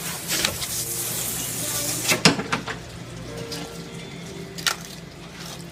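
Knife cutting a whole salmon into fillets on a plastic cutting board, with a sharp knock about two seconds in and another near the end. A steady hiss fills the first two seconds.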